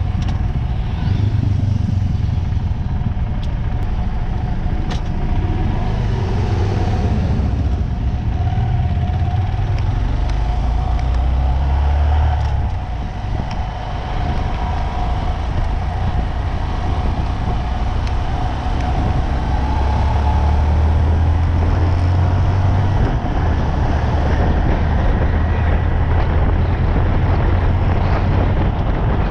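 A road vehicle travelling at speed: a steady low engine and road rumble under a wide rush of wind and tyre noise, dipping briefly about halfway through and getting a little louder near the end.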